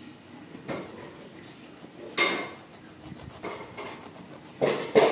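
Kitchen knife sawing through a loaf's crust and knocking against the cutting board: a few separate scraping knocks, the loudest about two seconds in with a brief ring, and another pair near the end.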